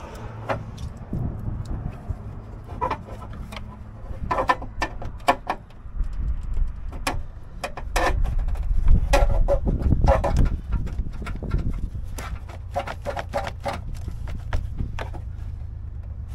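Scattered clicks and knocks of hand tools and parts as a piece is fitted back on in a car's engine bay, some in quick clusters, over a low rumble.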